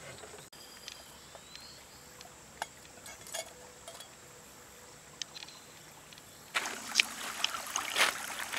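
Faint outdoor quiet with a few light ticks, then, about two-thirds of the way in, footsteps crunching over loose river-shore pebbles.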